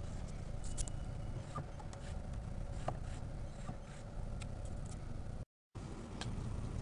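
Small scratching and ticking of a plastic squeegee rubbing over metallic foil covering, faint over a steady low rumble. The sound cuts out briefly about five and a half seconds in.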